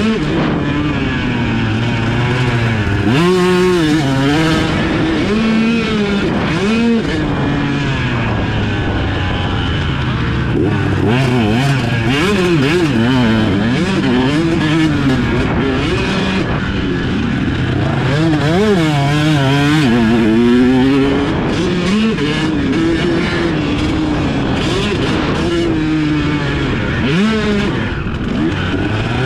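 Dirt bike engine ridden hard around a motocross track, its pitch climbing and dropping every second or two as the rider opens and closes the throttle through turns and jumps.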